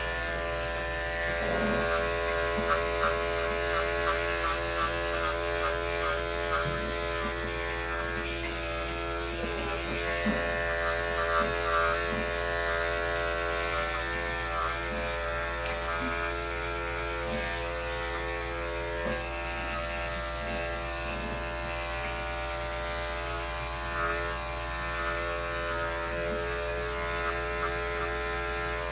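Electric dog-grooming clippers running with a steady buzz as they clip a dog's coat around the head, neck and chest.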